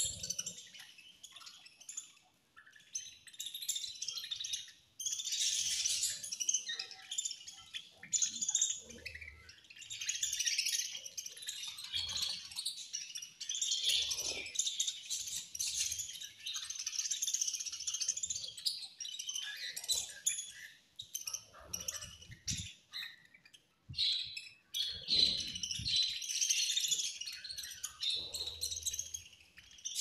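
A flock of budgerigars chattering and chirping in dense, uneven bursts while feeding together, with a few short lulls.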